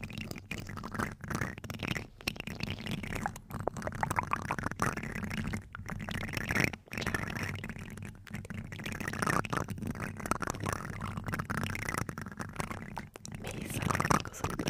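Plastic spoons scraped and rubbed against the microphone head, close up, giving a continuous scratchy rustle with a deep rumble, briefly broken off about seven seconds in.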